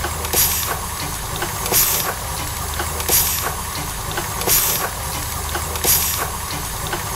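Steam engine running: a hiss of exhaust steam about every second and a half, with regular small mechanical clicks over a steady low rumble.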